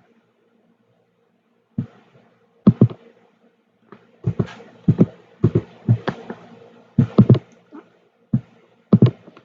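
A series of about a dozen irregular sharp clicks and knocks, some in quick pairs, over a faint steady hum.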